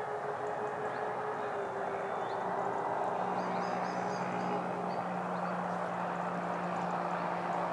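Twin electric ducted fans of a Freewing Su-35 model jet running in flight, a steady rushing whine whose tones shift slightly in pitch as the throttle changes, with short high chirps over it.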